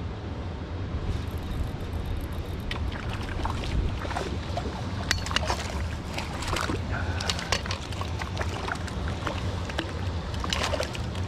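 Water splashing and sloshing, with scattered sharp clicks from about a second in, over a steady low rumble of wind on the microphone.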